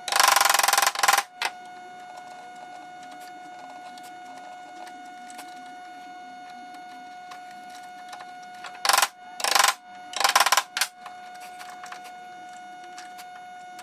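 Woodworking tool noise: a loud burst about a second long at the start and a cluster of three more near the end, over a steady hum.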